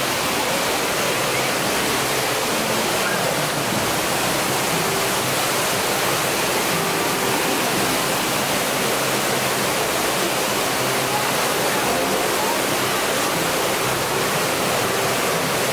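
A waterfall in a rocky gorge running steadily: an even, unbroken rush of falling water.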